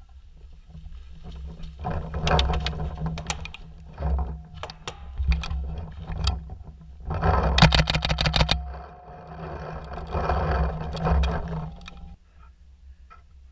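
Paintball markers firing in quick strings of sharp pops. The shots come in several bursts, the densest about halfway through, over a steady low rumble.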